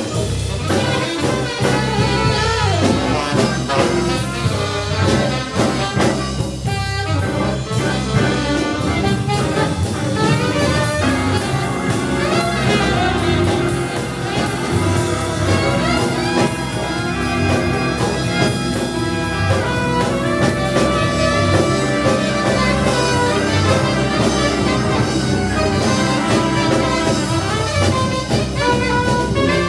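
A live jazz band playing a tune with a steady beat.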